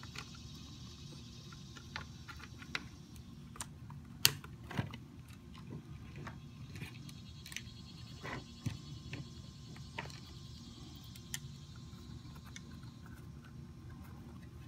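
Handling noise of wire harnesses being fed through a hoverboard's metal frame: scattered light clicks and taps, with a sharper knock about four seconds in, over a steady low hum.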